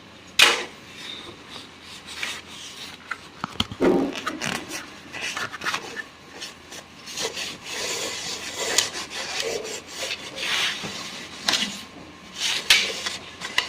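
Dry cloth rubbing and wiping over a Singer sewing machine in irregular strokes, with a few sharp knocks of the cloth or hand against the machine.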